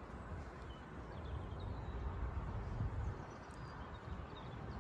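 Outdoor ambience: a fluctuating low rumble of wind on the microphone, with a few faint short bird chirps.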